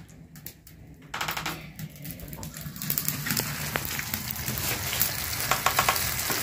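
Beaten egg and masala omelette mixture sizzling on a hot iron tava (flat griddle) as it is poured and spreads. It starts about a second in and grows louder, settling into a steady hiss from about three seconds in.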